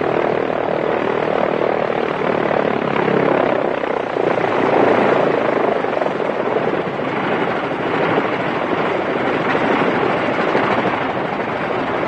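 Vintage biplane's propeller engine running with a steady drone as the plane taxis along a street.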